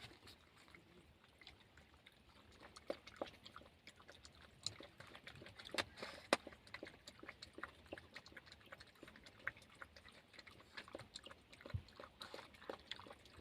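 An animal chewing and biting, faint irregular crunches and clicks, with a few louder cracks about midway.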